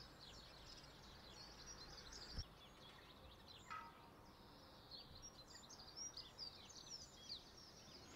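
Faint woodland birdsong: many short, high chirps and trills from small birds, busier in the second half. A single click a little over two seconds in.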